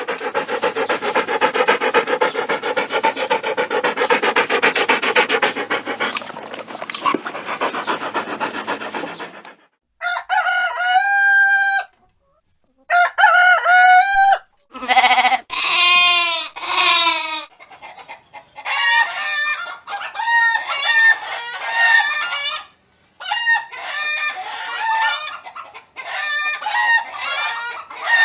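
Chickens: a dense flock clucking together for about the first nine seconds, then several rooster crows, then a hen clucking in short, repeated calls.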